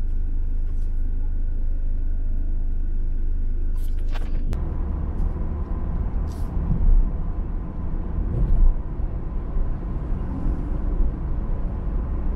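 A steady low rumble, then about four and a half seconds in a louder, uneven rumble of a car driving along a road: engine and tyre noise.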